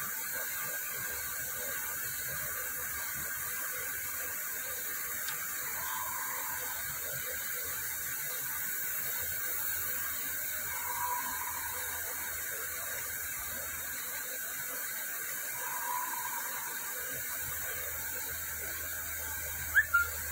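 Steady background hiss with faint brief tones about every five seconds, and a sharp click near the end.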